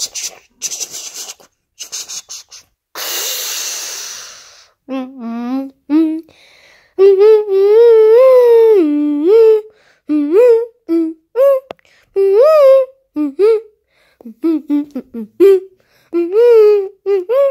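A boy making toy battle sound effects with his voice: a few sharp clicks at first, a hissing burst about three seconds in, then a long run of hummed tones that slide up and down in pitch, broken into short phrases.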